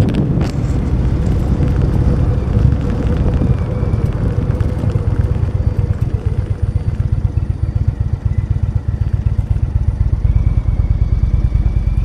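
Motorcycle engine running steadily with an even, rapid firing pulse.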